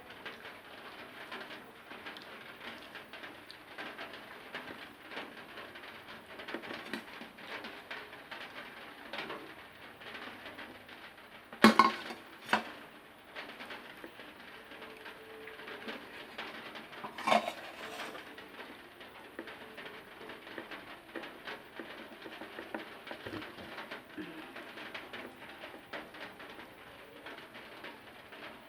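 Someone eating: close chewing and mouth sounds, with a few sharp clinks of dishes near the middle.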